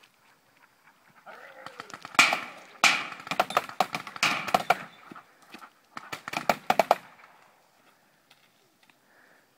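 Paintball markers firing rapid strings of shots in two bursts: the first starts about two seconds in and runs for a couple of seconds, the second comes about six seconds in and is shorter.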